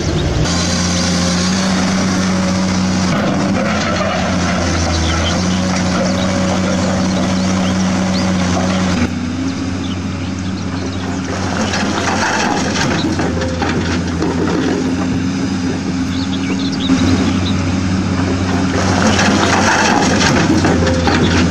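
Steady low engine drone that shifts pitch in steps a few times, with a light crackle of soil spilling from the toy excavator's bucket into a toy dump truck near the end.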